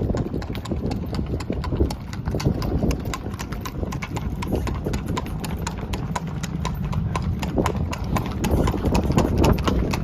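Hooves of several horses clip-clopping, a quick, uneven run of sharp clicks.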